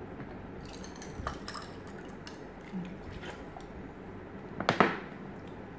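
Cola poured from a plastic bottle into a glass, with liquid running and splashing. Near the end comes a short, loud clatter of the bottle being handled.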